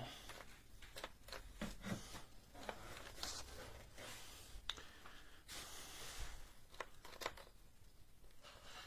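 Faint scattered clicks and short rustles of something being handled, with no saw motor running.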